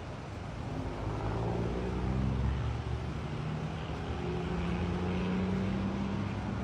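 An engine running steadily: a low, even hum with a drone of several tones held at one pitch, over a rushing noise.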